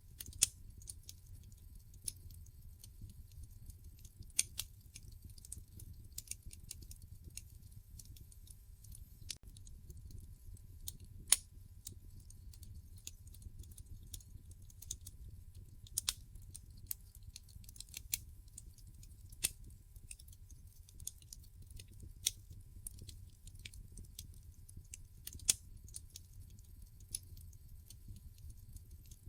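Wood fire crackling in a fireplace: irregular sharp pops and snaps, a few much louder than the rest, over a low, steady rumble.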